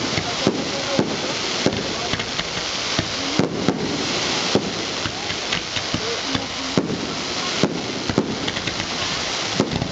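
Fireworks display: aerial shells bursting in sharp bangs, about one a second, over a steady crackling hiss of sparks.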